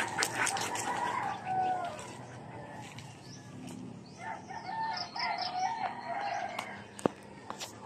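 A rooster crowing once, a wavering call in several parts starting about four seconds in. Scattered clicks and scuffs, with one sharp click near the end.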